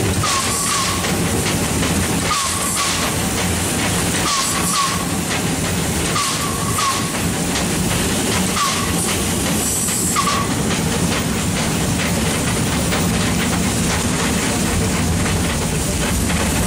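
Small steam locomotive running slowly, with a steady low rumble and short hissing steam puffs about every two seconds, each carrying a brief high note; the puffs stop about ten seconds in.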